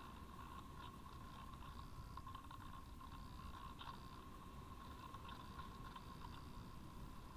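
Faint airflow rumble on the onboard camera of a Parkzone Radian Pro RC glider in flight, with a steady high hum and scattered faint crackles.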